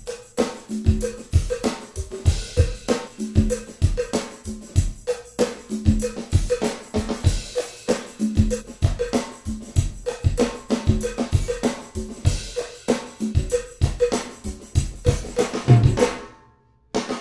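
Recorded acoustic drum kit with percussion playing a steady groove, drenched in heavily exaggerated room reverb from the IK Multimedia Fame Studio Reverb plugin. As the reverb's source position is swept, the room grows brighter in the upper mids and highs. The playback stops about a second before the end.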